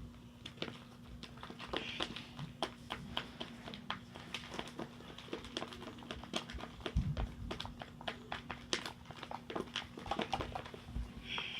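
Homemade shaving-cream slime being stirred and squeezed by hand in a container: a steady stream of small sticky clicks, with a couple of dull thumps.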